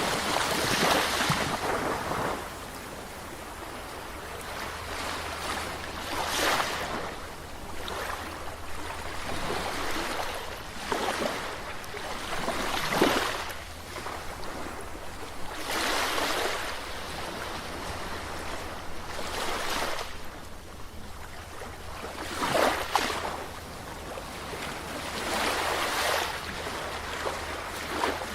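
Ocean waves breaking on the shore, each wave swelling into a rushing surge and washing back, about every three to five seconds at an uneven rhythm.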